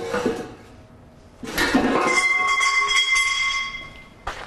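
A metal clink, then a drawn-out metallic scrape with a steady high ring lasting about two and a half seconds, from tools and steel parts being handled during the teardown.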